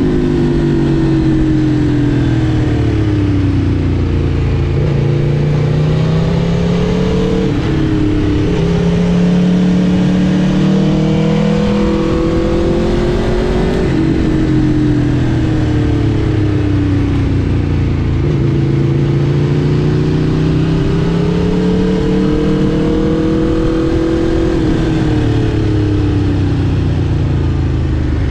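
Aprilia RSV4 Factory's V4 engine under way, its note rising and falling over and over as the throttle is worked, with sudden drops in pitch a few times.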